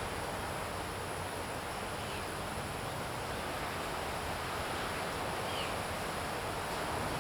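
Steady outdoor background noise, a constant rushing hiss like wind through leaves, with a faint high steady tone above it. Two faint short chirps come about two seconds in and again after five seconds.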